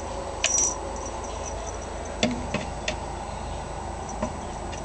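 A kitten moving about inside a small wooden cubby: a short cluster of sharp clicks about half a second in, then four light knocks and taps on the wood, the loudest just after two seconds, over a steady hum of room noise.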